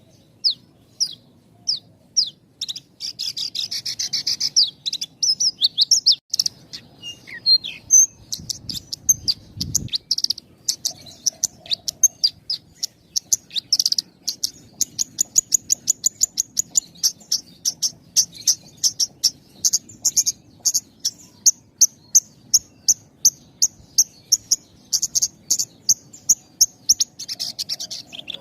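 Javan bush lark (branjangan) singing a long, busy song of short, high chirps and trills with tight gaps between them. The notes turn into a fast, even run of several a second from about halfway through.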